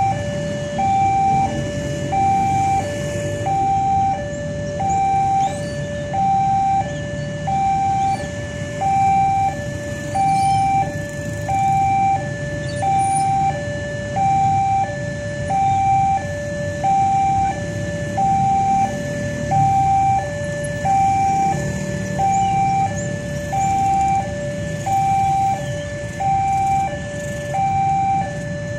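Railway level-crossing warning alarm sounding its two-tone high-low pattern, repeating about every second and a half, the signal that a train is coming. The engines of waiting motorcycles run underneath.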